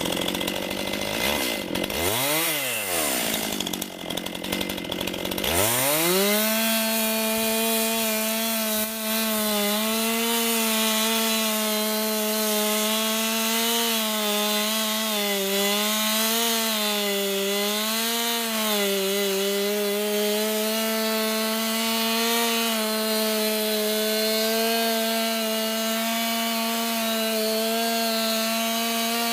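Chainsaw revved briefly, then held at full throttle cutting through a storm-felled tree, its high steady engine note sagging a few times under load in the middle and dropping at the end.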